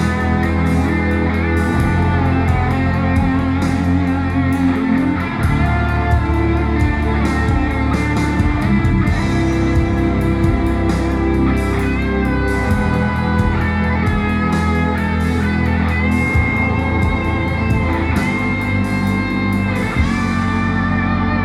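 Guitar-led music with a strong bass line and regular drum hits, played back through B&W DM603 S3 floorstanding speakers driven by a Sony TA-F490 amplifier.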